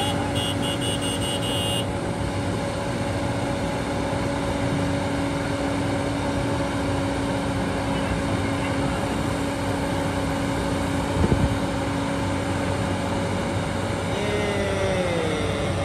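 Heavy excavator diesel engine running steadily with a constant drone, and one sharp knock about eleven seconds in.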